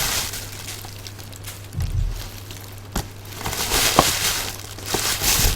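An action figure's box packaging being worked open by hand: uneven rustling and crinkling, with a couple of sharp clicks about three and four seconds in.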